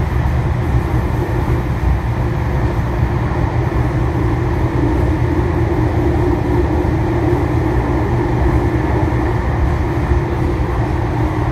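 Steady rumble of a moving passenger train heard from inside the car, with no breaks or impacts. A droning hum in it swells for a few seconds about halfway through.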